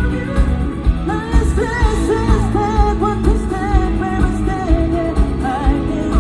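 A pop-rock band playing live, with a sung vocal melody over drums keeping a steady beat.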